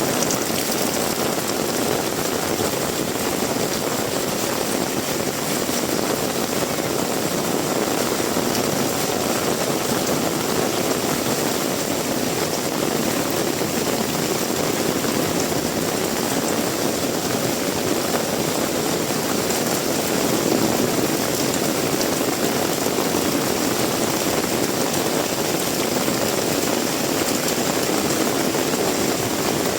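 Heavy rain falling, a steady, even downpour noise.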